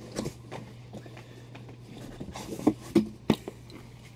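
Comic books being handled and set down onto stacks: light paper shuffling with several sharp taps, the loudest three coming close together past the middle, over a steady low hum.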